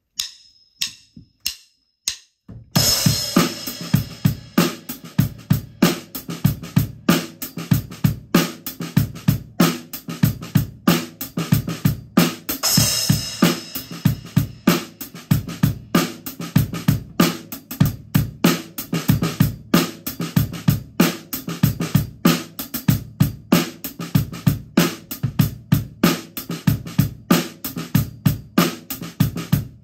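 Acoustic drum kit played with sticks. A few separate hits, then a crash about three seconds in starts a steady groove of kick, snare, hi-hat and cymbals, with another crash near the middle.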